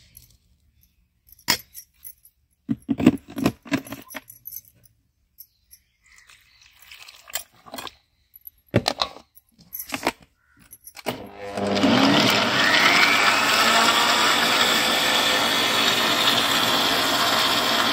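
Spoon and steel-vessel clinks and knocks against a plastic blender jar, then about eleven seconds in an electric mixer-grinder starts and runs steadily, blending watermelon chunks with sugar and water.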